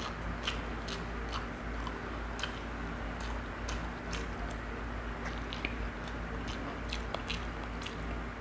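A person chewing and eating close to the microphone, with irregular wet smacks and clicks over a low steady hum.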